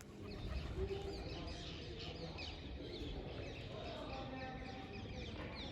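Many small birds chirping, with lots of short, quickly falling chirps overlapping, over a low steady background rumble.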